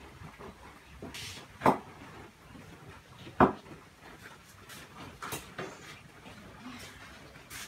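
Two sharp knocks about a second and a half apart, followed by a few fainter clicks.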